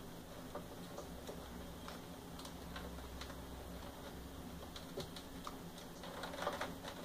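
Faint, irregular small clicks and rustles of wires being handled inside an open cassette deck's chassis, with a brief louder rustle near the end.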